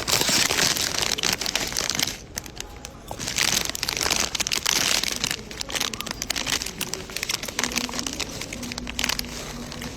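Rustling, crackling noise with many small clicks, loudest in the first two seconds and again for a stretch from about three and a half seconds in.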